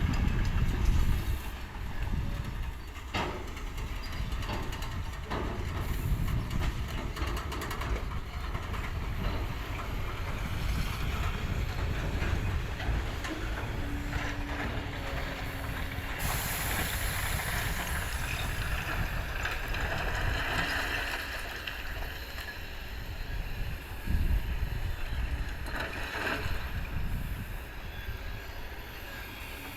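Heavy diesel machinery running with a steady low rumble and scattered knocks and clanks, typical of an excavator working rock; a short steady tone sounds about halfway through.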